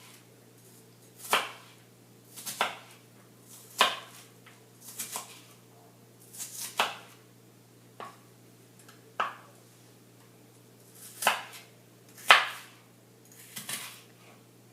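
Kitchen knife chopping an onion on a cutting board: slow, uneven single chops about a second or so apart, some in quick pairs.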